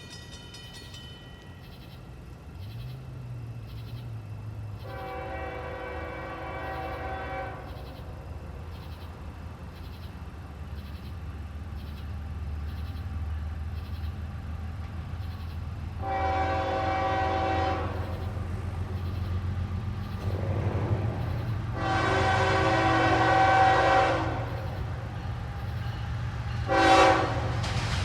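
Diesel locomotive's air horn sounding several long blasts of many tones at once, with a short blast near the end, over the low rumble of the approaching train, which grows steadily louder.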